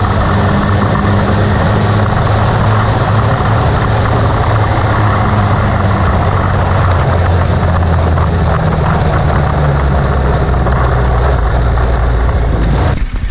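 Motorcycle under way with an aftermarket Exos R6 Silent Pipe exhaust. It has a deep, steady engine note under a loud rush of wind and road noise, with the engine note dropping a little about two-thirds through. It cuts off suddenly near the end.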